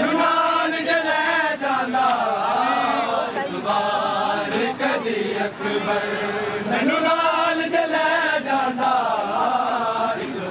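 Men's voices chanting a Punjabi noha, a Shia lament, together, over the repeated slaps of hands beating on bare chests (matam).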